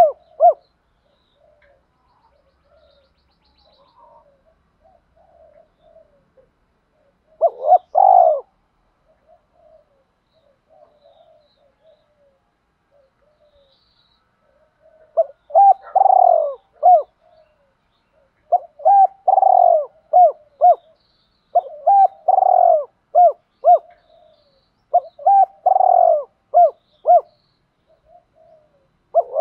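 Spotted dove cooing: a phrase about eight seconds in, then, after a quiet stretch of soft notes, four phrases in quick succession, each a strong coo followed by several short clipped notes.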